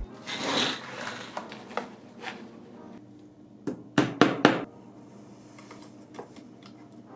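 Hard objects being handled: a short hiss near the start, scattered light clicks, then three sharp knocks in quick succession about four seconds in.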